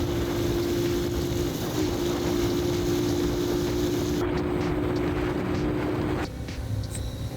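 Motorcycle engine running steadily, with a constant tone and some wind noise. About six seconds in, it gives way abruptly to music.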